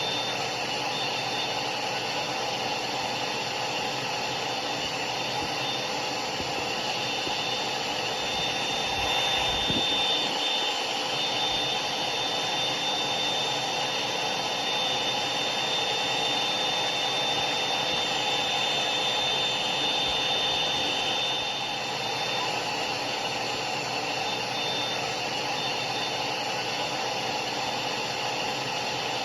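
Hair dryer running steadily: a constant rush of air with a thin high motor whine over it, swelling slightly louder for a couple of seconds about a third of the way in.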